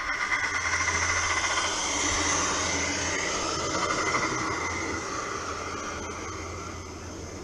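A 16mm-scale live-steam garden railway locomotive and its coaches running past close by, with steam and wheel-on-rail noise. The sound is loudest about a second or two in and fades away over the last few seconds as the train moves off.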